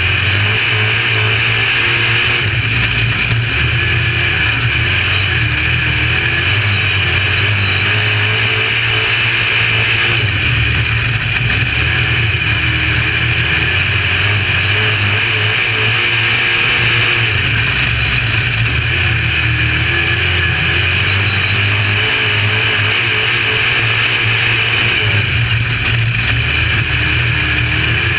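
A UMP dirt modified's V8 engine at racing speed, heard from inside the cockpit. The engine pitch climbs and drops again every several seconds as the driver goes on and off the throttle through the straights and corners, with a steady rushing noise underneath.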